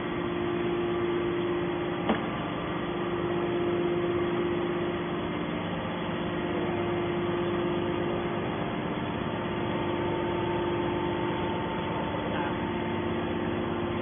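Hydraulic scrap metal baler's power unit running with a steady hum, with one sharp click about two seconds in.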